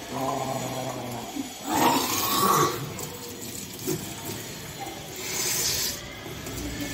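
A person retching and bringing swallowed water back up in gushes during kunjal, the yogic stomach wash. A loud retch with a splash of water comes about two seconds in, and another splash of water near the end.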